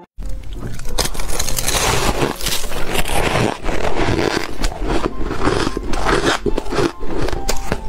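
Close-miked crunching and chewing of frosty, snow-like ice chunks: a dense run of many quick crunches and crackles.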